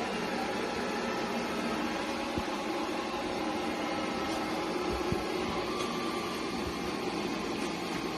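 Robot vacuum running: a steady motor hum with a faint whine, and a couple of soft knocks around the middle.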